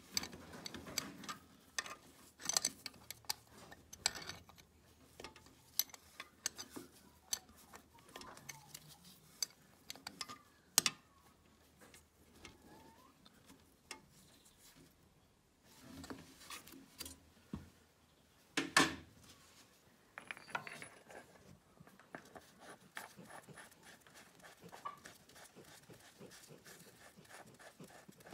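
Metal spanner clinking and ticking against bolts on a tractor's hydraulic housing: irregular small metallic taps and clicks, with two louder knocks about eleven and nineteen seconds in.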